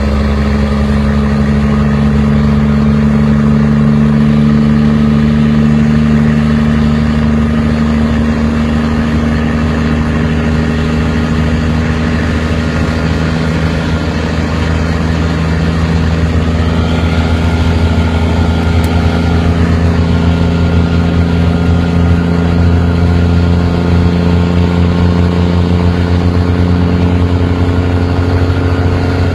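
A vehicle engine running loud and steady at an even speed, a constant low drone. A faint higher whine joins over the second half.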